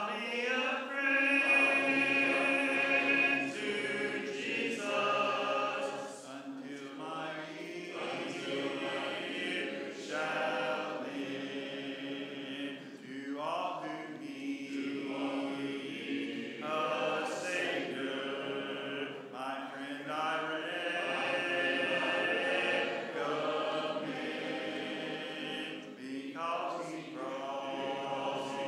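A church congregation singing a hymn a cappella, many voices together, following a song leader phrase by phrase.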